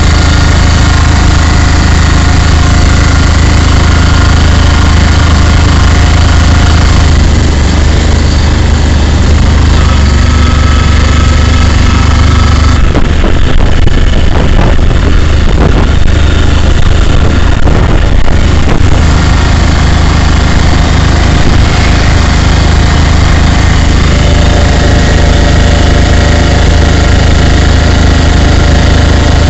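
Vehicle engine heard from inside the cab while driving, a loud steady running hum with a low drone and a set of steady tones. From about 13 to 19 seconds in, it turns rougher and noisier, then settles back to the steady hum.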